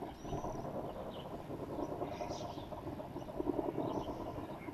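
Rumble of a distant explosion rolling in, starting suddenly and holding steady, with small birds chirping a few times over it.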